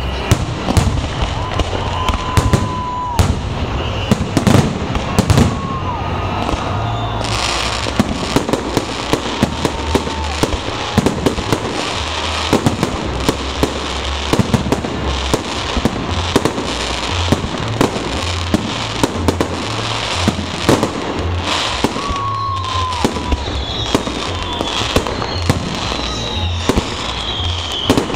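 Fireworks display: a continuous barrage of shells bursting in many sharp bangs, with a hissing crackle setting in about seven seconds in and a few short whistles.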